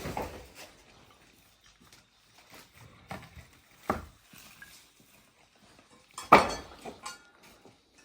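A few scattered sharp knocks, one about four seconds in and a louder one about six seconds in, with faint ticks and quiet stretches between.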